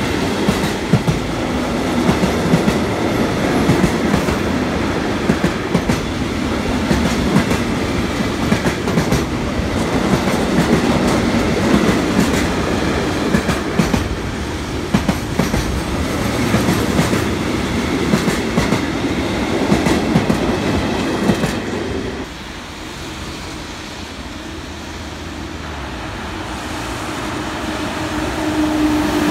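A freight train of tank-container wagons rolls past close by, its wheels clacking over the rail joints. About 22 seconds in, the last wagons go by and the sound drops. It then grows louder again as an SNCF BB 26000 'Sybic' electric locomotive approaches, hauling hopper wagons.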